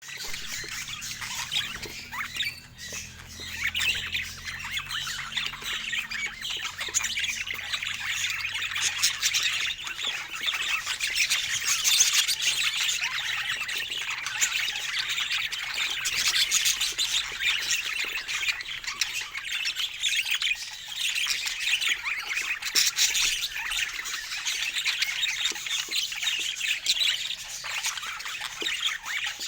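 A flock of budgerigars chattering continuously, many overlapping warbles and chirps. A faint low hum runs underneath for the first ten seconds or so.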